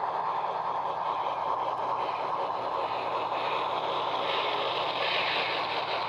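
HO scale model steam train rolling past on the track: a steady clatter of small metal wheels on the rails, mixed with steam locomotive sounds from the Tsunami 2 sound decoder's speaker.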